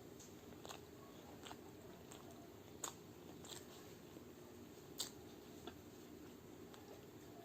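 Close-up chewing of chole bhature with raw onion, chilli and cucumber: quiet wet mouth sounds with about six short crunchy clicks, the loudest about three and five seconds in, over a faint steady low hum.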